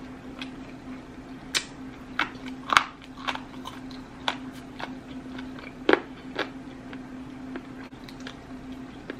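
Close-miked eating: crunchy bites and chewing, with sharp crunches at irregular intervals, over a steady low hum.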